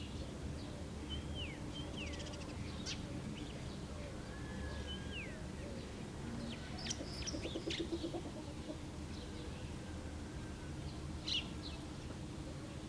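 Small songbirds chirping and calling over steady village background noise: quick sharp chirps and falling whistled notes, scattered throughout. About halfway through, a short run of rapid low pulses from another animal call.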